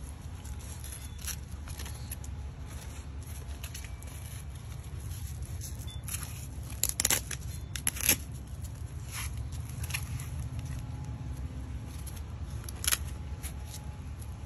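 A dog's ThunderShirt being wrapped and fastened: fabric rustling and the crackle of its hook-and-loop flaps pulled apart and pressed shut, with two short sharp rips a little before the middle and another near the end. A steady low rumble runs underneath.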